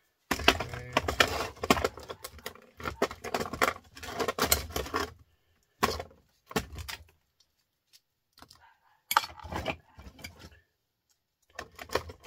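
Small scrap electrical transformers clinking and clattering against each other as they are handled and sorted by hand. There is dense clatter for about five seconds, then a few shorter bursts.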